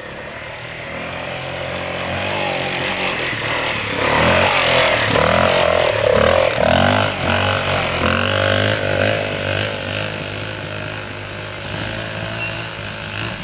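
Trail motorcycle riding a slippery woodland trial section. The engine grows louder as the bike approaches and is loudest as it passes close, about four to seven seconds in, with the revs rising and falling. It then fades as the bike pulls away up the climb.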